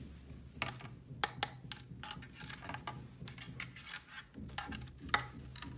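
Small plastic toy pieces being handled, giving scattered sharp clicks and taps, over a low steady hum.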